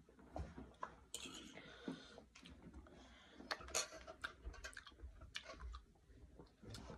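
Faint eating sounds: scattered clicks and short wet noises of a person chewing lime slices, with a metal fork clicking against the bowl. A few louder ones come about a second in and again around three and a half to four seconds in.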